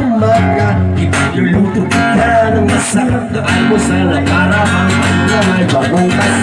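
Acoustic guitar strummed with a sung vocal line, amplified through a PA: a live acoustic song.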